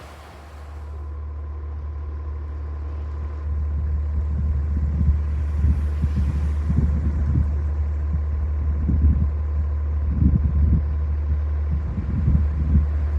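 Steady low rumble that grows louder over the first four seconds, with irregular low thuds over it and a faint steady high tone.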